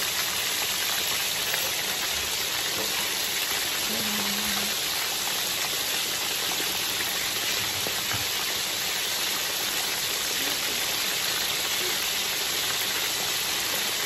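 Cornmeal-breaded fish fillets deep-frying in hot oil in a cast iron skillet: a steady, even sizzle of bubbling grease.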